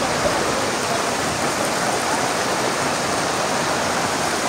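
Steady rush of muddy floodwater from a huayco (mudflow) pouring across a street and slope.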